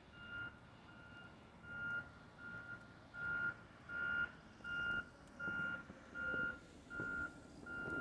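A vehicle's reversing alarm beeping steadily, about four beeps every three seconds, growing louder over the first few seconds.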